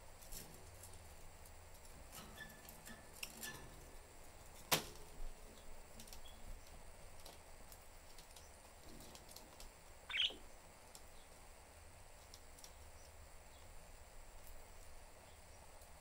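Pet budgerigars in a cage, mostly quiet: scattered faint ticks and clicks, one sharp click a little under five seconds in, and a single short chirp about ten seconds in.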